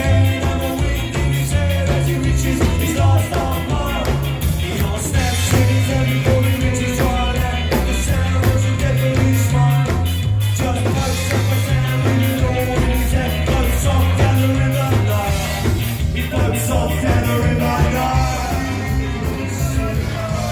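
A band playing an upbeat ska-style song with a lead vocal over a moving bass line and drums.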